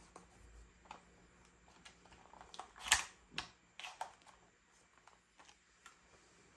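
Irregular small mechanical clicks and clacks of a plastic toy pistol being handled, the loudest a sharp click about three seconds in, followed by a few more over the next second.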